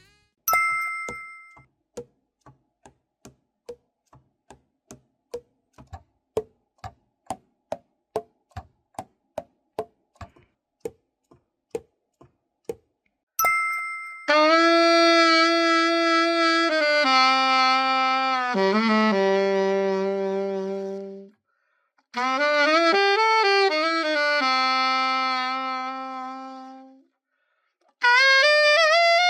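Alto saxophone, a Selmer Mark VI just overhauled, being play-tested: after a bell-like ding comes a run of soft clicks at a quickening pace, like keys being tapped shut, then another ding and long held notes with vibrato in three phrases, stepping down and up in pitch.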